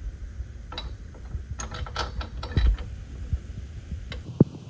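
Scattered small metallic clicks and taps, with one dull knock a little past halfway, as fingers work a bolt and a steel bumper bracket on a UTV frame to line the bolt up and start it by hand.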